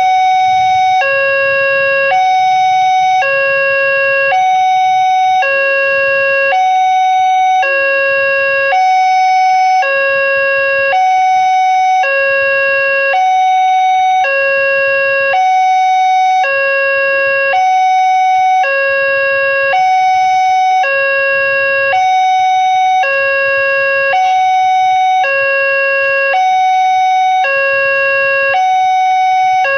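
Electronic warning alarm of an Indonesian railway level crossing sounding from its loudspeaker, two tones alternating steadily about once a second: the signal that a train is approaching the crossing.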